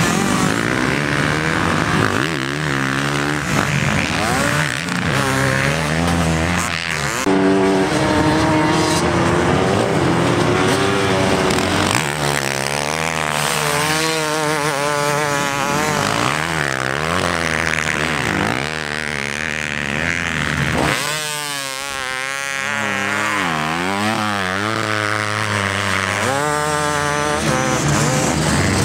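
Motocross bike engines revving hard, their pitch climbing and dropping over and over as the bikes race past and accelerate out of corners.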